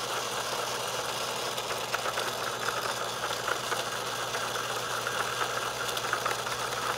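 Small electric motor of an egg-spinning decorating device running steadily, turning an egg, with a constant hum.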